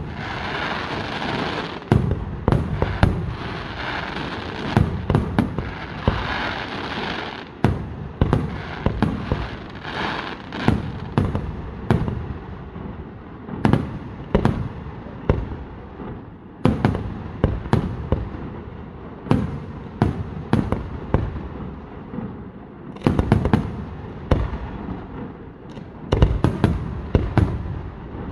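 Aerial firework shells bursting in rapid succession, with deep booms every second or two. For the first seven seconds or so a dense crackling rides over the booms.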